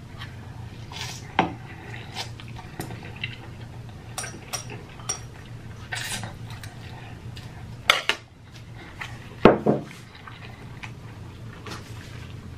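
Close-up eating of instant noodles: chopsticks clicking against a small bowl, with noisy slurps and chewing between the clicks. The sounds come in scattered short strokes, the loudest a little past the middle.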